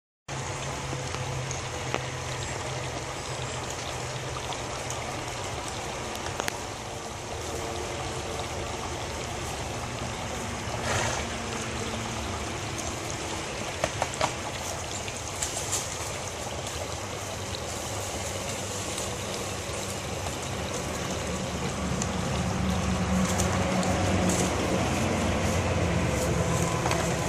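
A small creek runs steadily over rocks, with a few scattered clicks and knocks, and it grows louder over the last few seconds.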